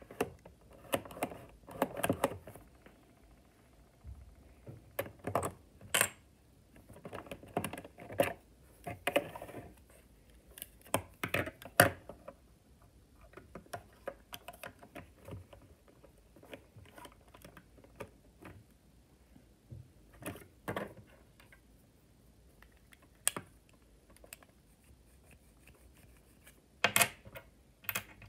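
Lego bricks and plates clicking and clattering as a Lego candy machine's coin mechanism is handled and taken apart by hand. The clicks come in irregular clusters with short quiet gaps, and a few single sharper clicks stand out.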